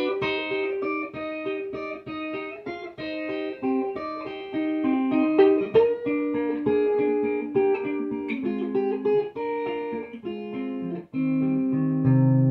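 Solo electric guitar, fingerpicked: an improvised waltz melody of quick single notes. Near the end it settles on a low note left ringing.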